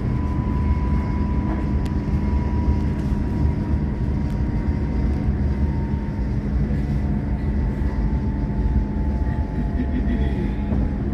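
Train running: a steady low rumble with a thin whine that slowly falls in pitch.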